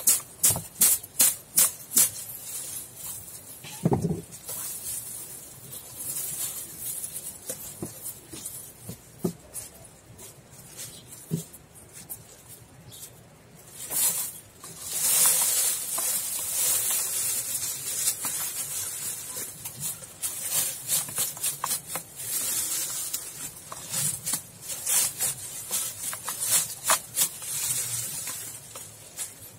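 Dry perilla stalks and seed heads crackling and rustling as they are rubbed and crushed by hand in a plastic basin, threshing the seeds out so they patter into the basin. Sharp crackles come thick at the start, with a longer dense rustle about fifteen seconds in.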